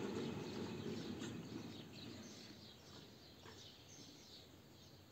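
Quiet outdoor ambience with small birds chirping faintly now and then; a low rumble fades away over the first couple of seconds.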